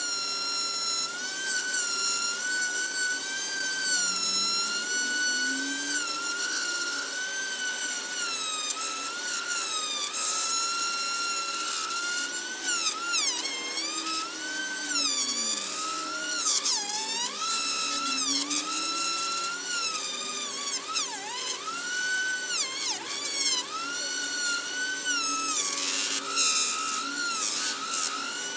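Handheld rotary tool with a small sanding drum running at a high whine, its pitch dipping and recovering again and again as the drum is pressed against the metal of an old clamp, with several deep dips in the middle. It is sanding the clamp's old black coating down to bare metal.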